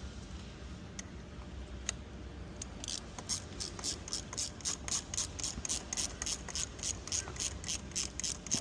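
Ratchet clicking in a steady run of about five clicks a second, starting about three seconds in after a few scattered clicks, as a tap is turned into a drilled-out bolt hole to cut threads for a thread-repair coil.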